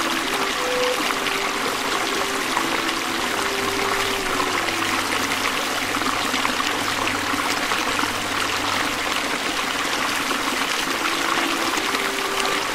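Shallow rocky stream running: a steady rush of water over stones. A soft melody of slow held notes plays faintly underneath.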